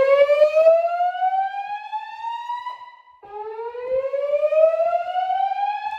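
Slow-whoop evacuation tone from a Notifier DVC voice-evacuation system through Gentex speakers: two slow upward sweeps in pitch, the second starting about three seconds in. It is the alert tone that comes before each recorded evacuation message.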